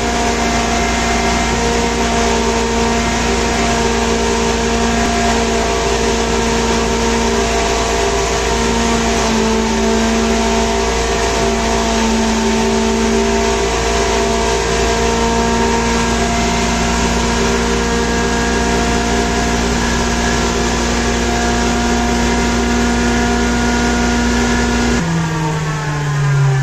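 Electric-motor-driven blower-type impact pulverizer (hammer mill) running steadily while grinding spice, a loud whirring hum with several steady tones. Near the end the low rumble drops and the hum starts falling in pitch.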